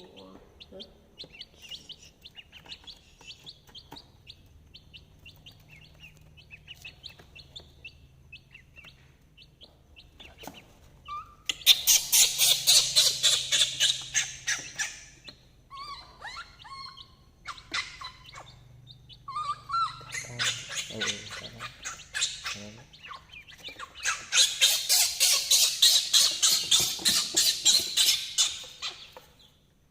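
Chirping calls: faint and scattered at first, then three loud bouts of rapid, evenly pulsed chirps lasting a few seconds each, with a few short chirps between them. A faint steady low hum runs underneath.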